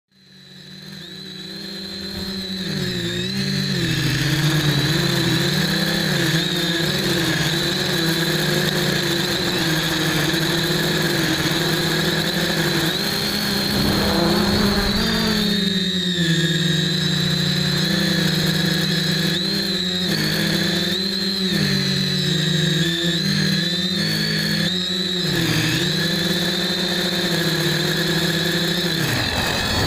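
Small FPV drone's electric motors and propellers buzzing steadily with a high whine. The pitch wavers and dips sharply a few times as the throttle is cut and brought back during flips. The sound fades in over the first few seconds.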